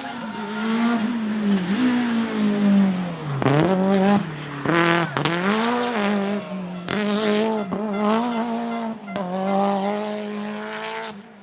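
Rally car engine at high revs, its pitch dropping and climbing again several times as the car lifts off and accelerates through the stage. A few sharp cracks cut in mid-run, and the sound falls away near the end.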